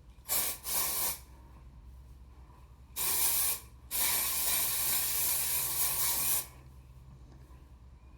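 Aerosol texturizing hair spray (Matrix Texture Builder) being sprayed onto hair in four hissing bursts: two short puffs in the first second, a half-second spray about three seconds in, then a longer spray of about two and a half seconds.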